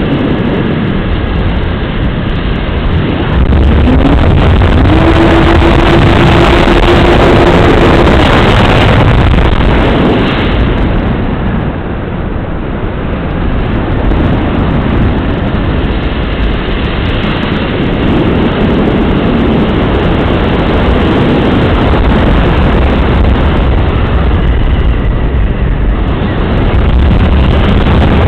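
Model airplane's motor and propeller heard from the onboard camera, with heavy wind noise on the microphone. A steady motor tone rises about three and a half seconds in as the throttle opens, the sound eases around twelve seconds, then builds again near the end.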